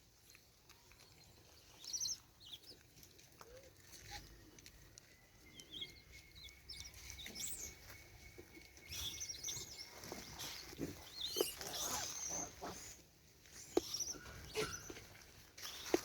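Faint high-pitched animal chirps and squeaks, scattered and brief, mixed with small clicks and rustles that grow busier in the second half.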